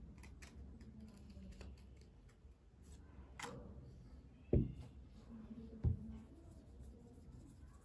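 Faint handling sounds of small items: soft rustles and light clicks, with two dull knocks a little over a second apart about halfway through.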